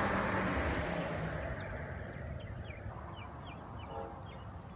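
CSX intermodal freight train receding down the track, its rumble fading steadily over the first couple of seconds. Small birds chirp in short, repeated calls after that.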